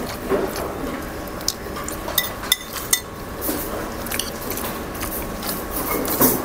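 Metal spoon clinking and scraping against a bowl while eating, a few short sharp clinks spread through.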